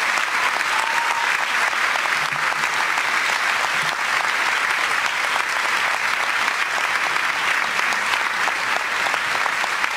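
Large audience in an assembly hall applauding, a dense, steady clapping without a break.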